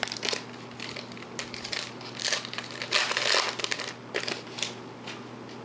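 Foil trading-card pack wrapper crinkling as it is torn open and handled, in a series of short rustling bursts with the longest and loudest about three seconds in.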